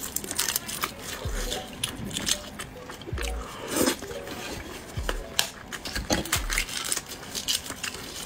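Shells of braised fertilized duck eggs (活珠子) cracking and being peeled by plastic-gloved fingers, wet from the broth: scattered crackles and sticky clicks, with a few soft low thumps.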